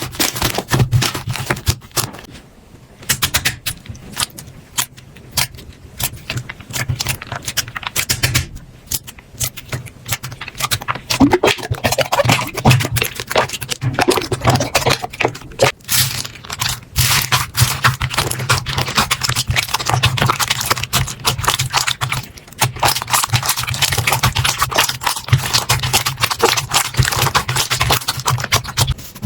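Slime being squeezed, poked and pressed by hand, making dense rapid clicks and crackles that thin out twice early on and grow busier after the first third.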